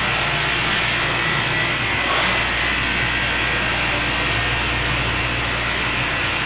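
Straight-line glass edging machine with nine grinding-wheel motors running steadily, a glass sheet on its conveyor for flat polished edging. A brief louder noise rises out of the steady run about two seconds in.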